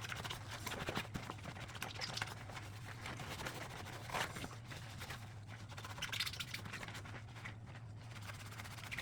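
Dishes being scrubbed by hand: soft scraping and rubbing with a few light knocks of dishware, over a steady low hum.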